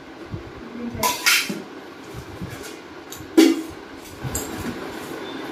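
Stainless steel spice tins and their lids clinking and knocking together as they are pulled apart and nested, a few sharp metal clanks with brief ringing, the loudest about three and a half seconds in.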